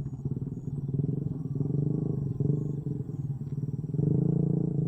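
A small engine running steadily with a low, rapidly pulsing sound, a little louder about four seconds in.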